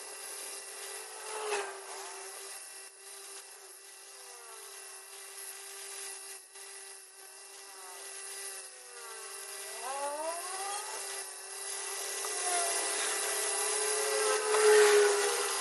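Bench grinder running with a steady hum while a steel bar is pressed against its grinding wheel, giving a rasping hiss that comes and goes. It grows louder near the end.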